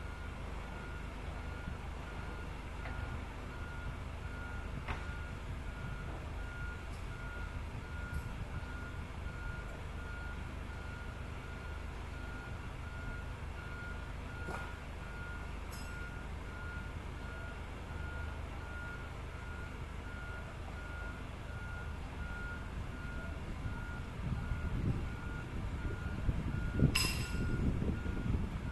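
Motion warning beeper on a hydraulic yacht transporter sounding a steady series of evenly spaced, single-pitched beeps over a low machinery rumble. Near the end the rumble grows louder and there is one sharp knock.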